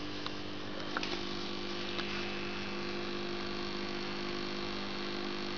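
Steady electrical hum, with a few faint clicks about a second and two seconds in.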